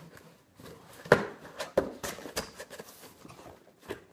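Cardboard shipping box being handled and shifted on a table: a few sharp knocks and scrapes, the loudest about a second in.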